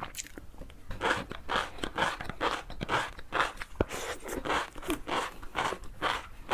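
Close-miked crunchy food being chewed, a steady rhythm of crisp crunches about two a second.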